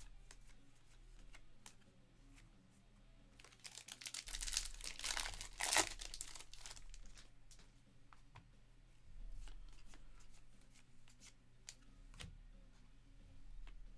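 A trading-card pack's foil wrapper being torn open and crinkled for a few seconds, starting about three and a half seconds in, with light clicks of cards being handled before and after.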